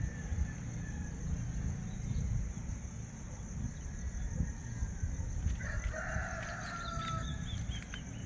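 A rooster crowing once, starting about five and a half seconds in and lasting under two seconds, over a steady low rumble, with small birds chirping briefly near the end.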